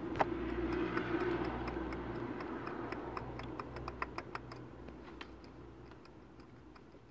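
Light, irregular ticking and clicking from the ribbed crankshaft pulley and belt tensioner pulley being handled with a rag, over a faint low hum; the clicks come several a second and fade out, the hum stopping about six seconds in.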